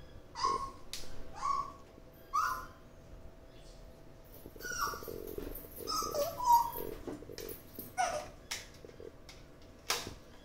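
Short animal calls: four about a second apart, then a cluster of several calls, then two sharp single calls near the end.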